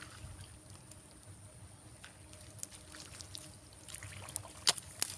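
Faint trickling water with a steady high hum, and a few sharp clicks between about four and five seconds in.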